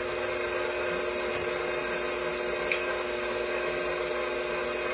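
KitchenAid stand mixer running at a steady speed, its motor giving a constant hum.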